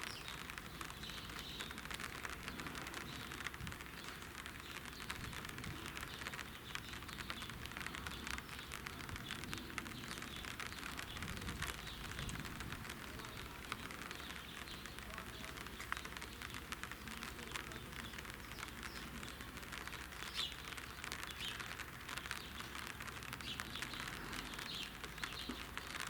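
Quiet outdoor ambience: a steady crackling hiss with occasional faint bird chirps.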